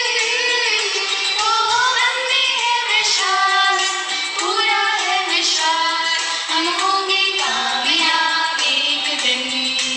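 A woman singing a devotional prayer with eyes closed and palms joined, a continuous melody of held notes gliding from pitch to pitch.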